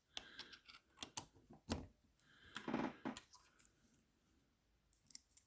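Faint metal clicks and scrapes of lever-lock picking tools being worked into a Chubb Cruiser lever lock: several sharp little ticks in the first two seconds, a softer scrape about halfway, then near quiet with a couple of tiny ticks near the end.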